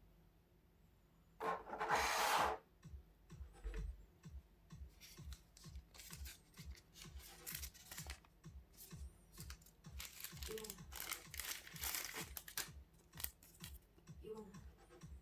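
Packaging being torn open and crinkled by hand: a loud tear about a second and a half in, then scattered rustling and crackling, with another long tearing stretch later on. Background music with a steady beat runs underneath.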